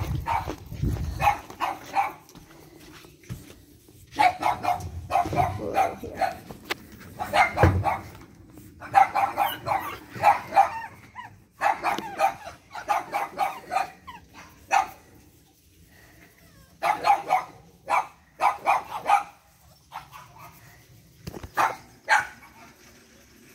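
Pug puppies play-barking and yapping in quick runs of short barks, with several runs broken by short pauses while they chase and wrestle.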